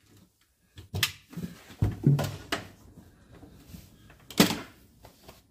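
A few sharp knocks and clunks of handling, with quieter rustling between them; the loudest knock comes about four and a half seconds in.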